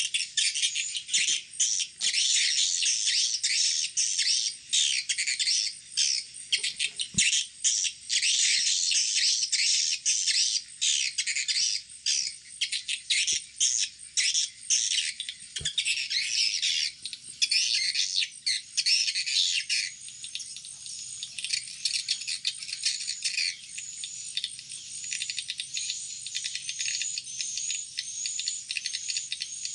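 Recorded swiftlet calls played through tweeter speakers as a lure sound for a swiftlet house: a dense, continuous chatter of high chirps. About two-thirds of the way through it thins into a regular run of short rising-and-falling chirps, a little more than one a second.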